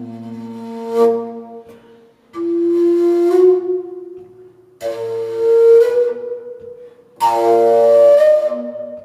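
Solo flute playing a slow melody of long held notes in separate phrases. The phrases begin about two, five and seven seconds in.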